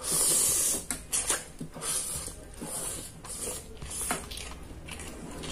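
Instant noodles being slurped into the mouth: one long, loud slurp about a second long, then a series of shorter slurps.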